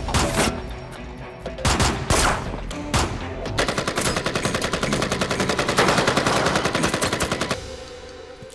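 Gunfire in a film action scene: a few single shots in the first three seconds, then a long burst of rapid automatic fire that stops about a second before the end.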